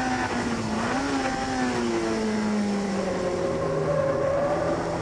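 Honda Integra Type R's B18C four-cylinder VTEC engine heard from inside the cabin. It runs steadily with a brief rise and fall in revs about a second in, then its pitch falls slowly as the revs drop.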